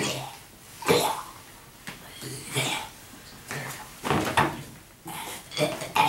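A person making short, rough cough-like vocal sounds, about five of them, roughly a second apart.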